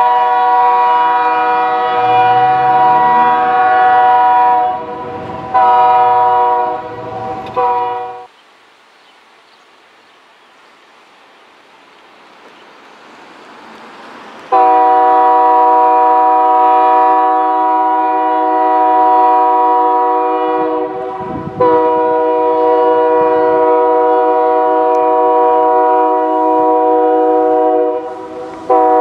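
Diesel freight locomotive's multi-chime air horn sounding a chord in long blasts: a long, a long and a short, then after about six seconds of faint rumble, two more long blasts and the start of a third near the end. This is the long-long-short-long pattern blown for a grade crossing.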